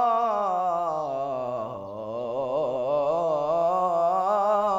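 A solo male voice sings Islamic religious inshad a cappella. It holds one long melismatic phrase that slides down about an octave with quavering ornaments, then climbs back up. The melody is in maqam Bayati, turning to Hijaz on the Sikah degree.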